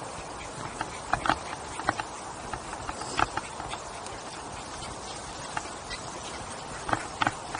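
Bicycle ridden along a path: a steady rush of tyres and wind with irregular light clicks and rattles. Louder clicks come about a second in, about three seconds in, and in a pair near the end.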